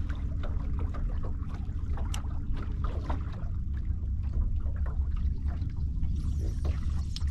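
Steady low rumble around a small fishing boat, with light water trickling and scattered small clicks.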